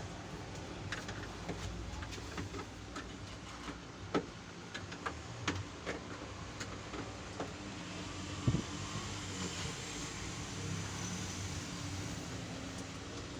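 Scattered light clicks and knocks from handling the plastic casing of a Yamaha PSR-E443 keyboard as it is being opened, over a steady low hum.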